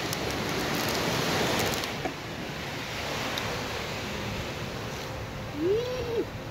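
Ocean surf washing onto a sandy beach: a steady rush of breaking waves, louder in the first couple of seconds. Near the end there is a short cry that rises and falls in pitch.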